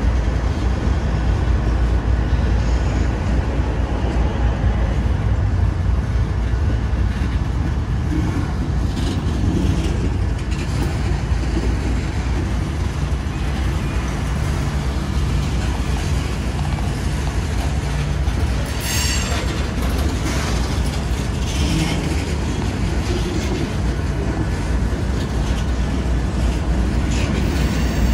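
Freight cars of a slow-moving mixed freight train rolling past on the rails with a steady low rumble. A few brief higher-pitched wheel noises come and go around the middle.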